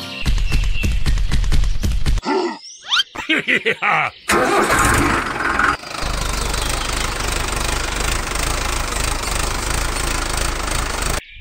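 Tractor engine starting: a rumbling, knocking start, a few seconds of broken sputtering, then from about six seconds in a steady run that cuts off suddenly near the end.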